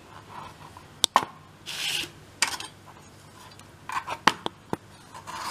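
Peeled carrots being handled on a plastic cutting board: a few sharp knocks, about a second in and again near four and a half seconds, with short scraping rubs between them.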